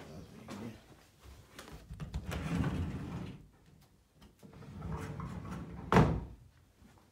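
A wooden interior door being handled, with two longer shuffling sounds and then a single sharp knock about six seconds in, the loudest moment.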